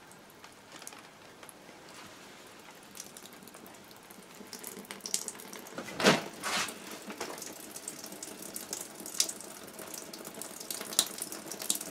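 Water left in an old copper hot water pipe draining out of an opened fitting, trickling with many small drips and splashes that pick up after a few seconds. There is one louder brief noise about six seconds in.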